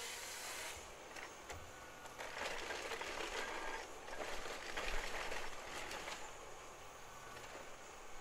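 A forestry machine at work: a steady low engine hum with two swells of mechanical working noise in the middle, each lasting a second or two, and scattered clicks.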